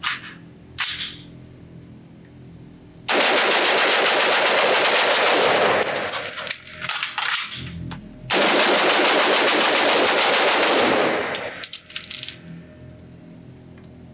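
Springfield Armory Saint AR-15 in 5.56 fired fast, semi-automatic, echoing in an indoor range. A rapid string of shots, a pause of about two seconds with clatter for a quick magazine change, then a second rapid string.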